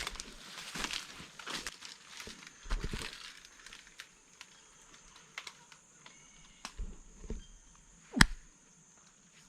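Rustling and footfalls in jungle undergrowth, then, from about four seconds in, a steady high-pitched insect chorus of rainforest crickets, with scattered small ticks and one sharp click near the end.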